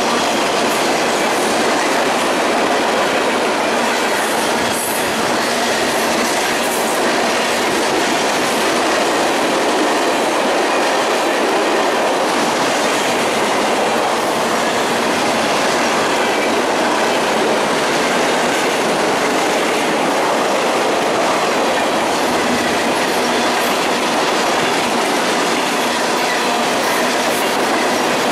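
Freight cars of a mixed freight train rolling past at close range: a steady, loud rumble and clatter of steel wheels on rail joints. A faint, thin wheel squeal runs underneath.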